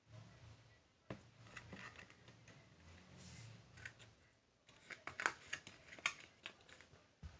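Faint handling noise: plastic cosmetics containers and packaging rustled and knocked about, with a run of sharp clicks in the second half.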